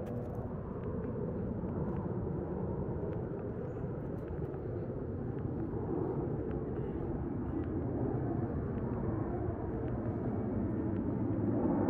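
Steady low rumble of distant engine noise, slowly growing louder.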